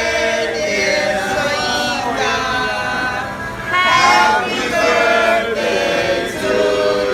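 A group of people singing a birthday song together in long, held notes.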